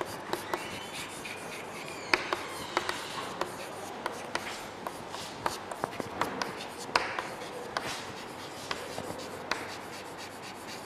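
Chalk writing on a chalkboard: irregular sharp taps and short scratches as letters are written.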